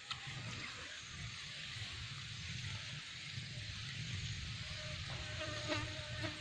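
Insects buzzing steadily in the background over a low rumble. About five seconds in, a short steady buzzing tone joins them.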